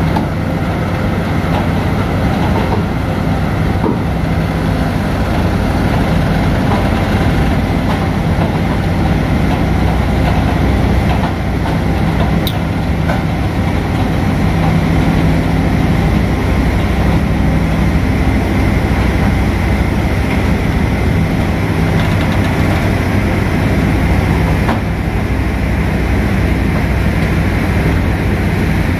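Heavy diesel power pack of a Cometto self-propelled modular transporter running steadily with a low, even drone.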